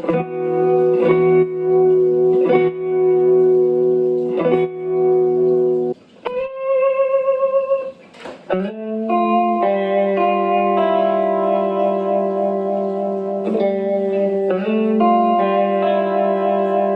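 Electric guitar played through a Behringer 69 Vibe pedal in vibrato mode with depth and level set low, giving a light, chorus-like wobble. Held chords ring out, with a single wavering note about six seconds in, then more sustained chords.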